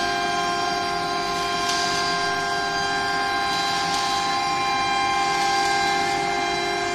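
CNC router spindle whining at a steady pitch as it cuts an aluminium composite panel, with a swell of hiss about every two seconds.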